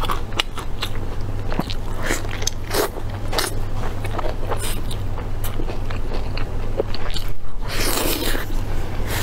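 Close-miked biting and chewing of sauce-covered braised meat on the bone: a dense run of wet clicks and smacks, with a longer, louder rush of sound about eight seconds in. A steady low hum lies underneath.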